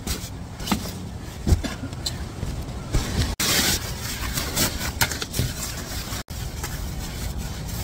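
Synthetic sleeping bag rustling and swishing in irregular bursts as it is handled and folded by hand, over a steady low wind rumble.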